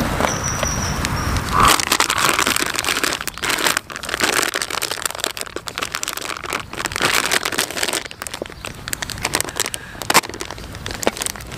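Knife slicing through a block of bacon on a cutting board, then crinkling and clicking of a plastic sausage packet being handled and cut open with a folding knife.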